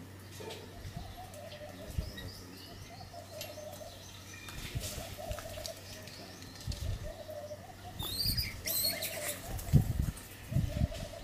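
Doves cooing in the background, a short low coo repeating roughly once a second, with a few high bird chirps about eight seconds in and some low thumps near the end.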